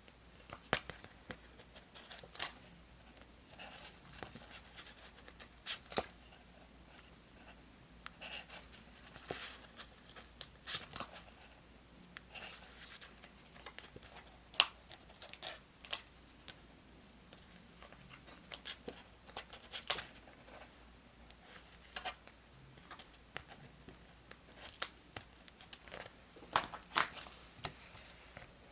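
Close-up sounds of paper and stickers being handled while decorating a diary: irregular short rustles, light tearing and peeling, and small taps and scrapes, with brief pauses between them.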